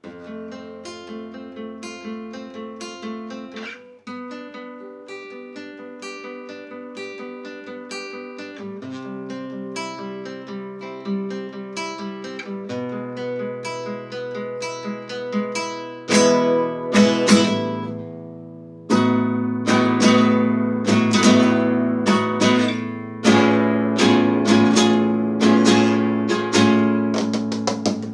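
Acoustic guitar played without singing: picked notes at first, then louder strummed chords from a little past halfway.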